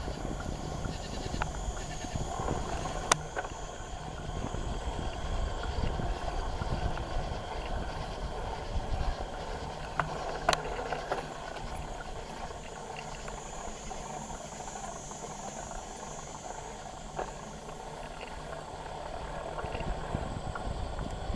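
Bicycle in motion, heard from a handlebar-mounted camera: steady tyre and road rumble with occasional sharp clicks and rattles from the bike. Faint high insect chirping sits behind it, swelling slightly midway.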